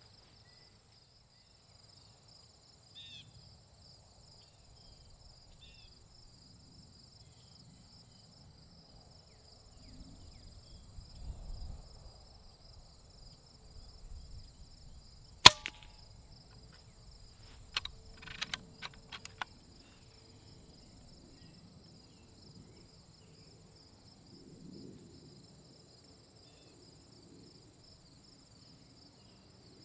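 A single sharp shot from a .25 calibre Hatsan FlashPup PCP air rifle about halfway through, followed a couple of seconds later by a few lighter clicks. A steady chorus of crickets and insects runs underneath.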